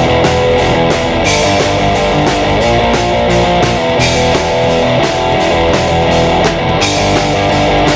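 Rock band playing: electric guitar over bass and a drum kit, with the cymbals keeping a steady beat of about four strokes a second.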